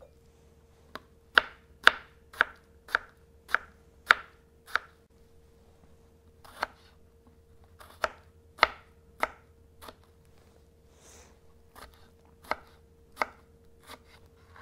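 Knife chopping tomatillos on a plastic cutting board: sharp knocks of the blade hitting the board, first a run of about seven at roughly two a second, then slower, scattered cuts.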